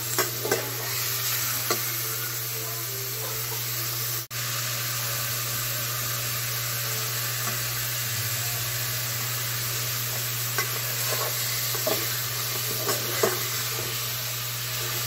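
Pork pieces sizzling as they brown in a metal pot, with a steady frying hiss, and a metal spoon stirring them and clicking against the pot now and then.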